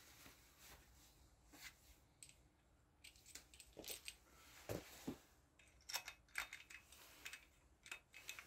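Faint, scattered light metallic clicks and clinks as a camshaft bearing cap and its bolts are handled and set onto a Kawasaki Z1100 cylinder head, with a few sharper clinks around the middle.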